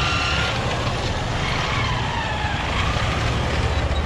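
Busy street traffic: a steady rumble of motor vehicles, with faint higher sounds that glide up and down in pitch above it.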